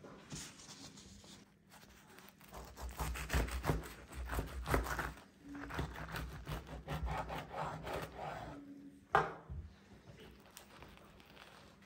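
Irregular rubbing and scraping of food and utensils being handled during burger assembly, with one sharp knock about nine seconds in.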